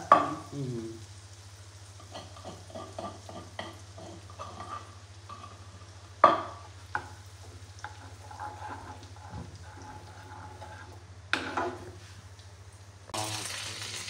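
Butter sizzling and foaming in a frying pan as a tadka of ginger, garlic and green garlic fries, stirred with a steel spoon that clinks sharply against the pan a few times. The sizzle grows louder near the end, over a steady low hum.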